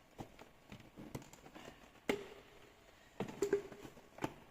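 Hands working the plastic door trim and clips of a car door: scattered light clicks and taps, with a few louder knocks about two seconds in and again past the three-second mark.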